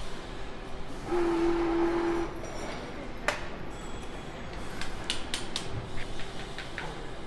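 Factory-floor machinery during hub assembly: a steady tone like a horn or buzzer sounds for about a second, starting about a second in. Sharp metallic clicks and clinks follow, one at about three seconds and a cluster near the end, over steady shop noise.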